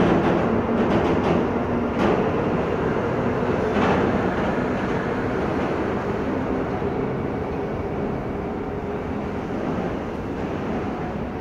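Container freight train rolling past: a steady rumble of steel wheels on the rails, with a few sharp clicks in the first few seconds. The sound eases off gradually near the end.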